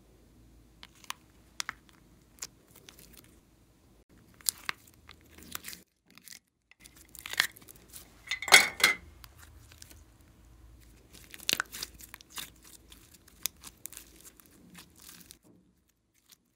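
Pink slime being handled by hand: pulled out of plastic containers, stretched and folded, with scattered sticky crackles, pops and tearing sounds. The loudest cluster comes about halfway through.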